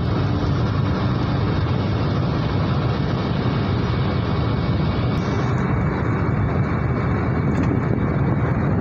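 Steady road and wind noise heard inside a car's cabin while it drives at highway speed, strongest at the low end.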